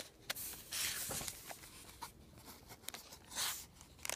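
Faint rustling and scratching in several short bursts, with a few light clicks between them.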